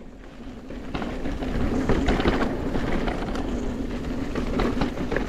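Mountain bike running fast over a rough, bumpy trail: tyres rumbling and the bike rattling and knocking over the bumps, with wind buffeting the microphone. It gets louder about a second in.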